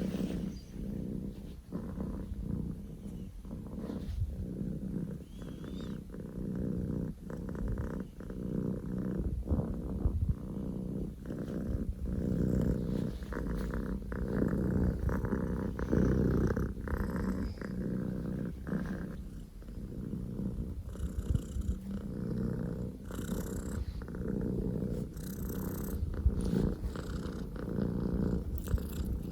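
Scottish Fold kitten purring very loudly and continuously, a low rumble that swells and dips with its breathing.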